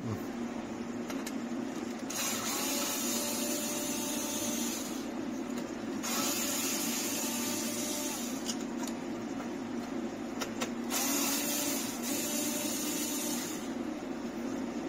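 Cordless drill-driver running against screws in the dash bracket, its motor whirring in a few long runs from about two seconds in until near the end, over a steady low hum.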